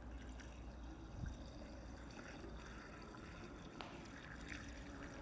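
A litre of isopropyl alcohol being poured into a car's fuel tank filler, a faint steady pour.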